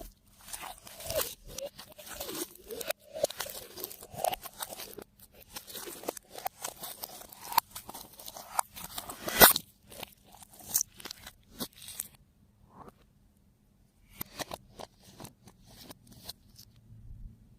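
Slime being squished and kneaded by hand, giving a run of crackly pops and clicks, with one sharper snap about nine and a half seconds in and a short lull near the end.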